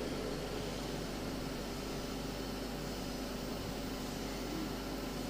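Steady background hiss with a low, constant hum: the room tone of a large hall and its microphone system, with no speech.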